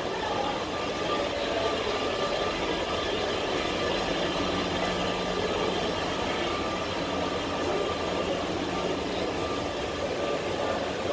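Escalator running with a steady mechanical hum, over the constant background noise of a large terminal hall.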